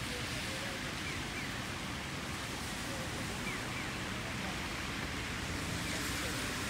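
Steady hiss of falling rain, with a faint voice talking in the distance.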